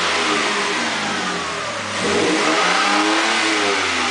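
1999 Toyota Tacoma engine being revved, its pitch falling back and then climbing and dropping again about halfway through, while it runs with Sea Foam cleaner in the oil and fuel to treat an engine knock.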